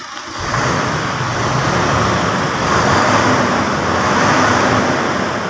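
Isuzu 6HK1 six-cylinder diesel engine running, coming up loud about half a second in with small swells in level. It runs again after a cranking-but-won't-start fault that the scanner put down to the suction control valve.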